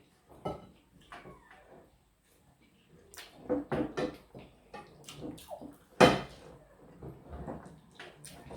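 Irregular clinks, knocks and scrapes of plates and cutlery during eating, with one louder knock about six seconds in.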